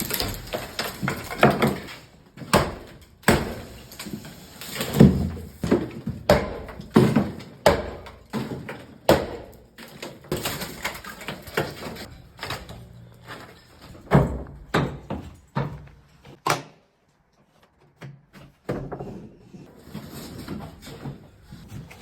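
Irregular knocks, thuds and bangs of an entrance door being fitted, the door and its frame being moved and struck, with a short silence about two-thirds of the way through.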